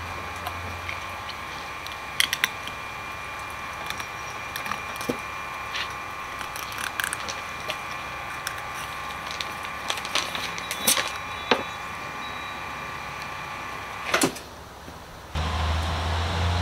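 Scattered clicks and knocks of a fillet knife and hands working a salmon on a plastic cutting board, over a steady faint high hum. A louder knock comes near the end, followed by a sudden low steady hum.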